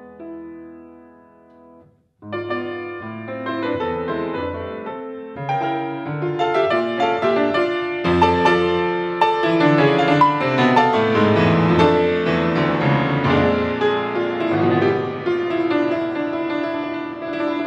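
Grand piano played solo: a soft held chord dies away to a brief silence about two seconds in, then a loud passage begins and builds into full, dense chords across the keyboard.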